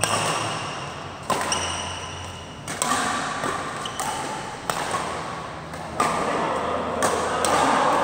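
Badminton rackets striking a shuttlecock in a doubles rally: about six sharp hits, one every second or so, each echoing in a large hall.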